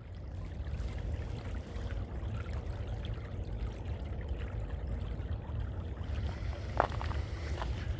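Small meltwater stream from melting ice trickling and running steadily, with one brief sharper sound near the end.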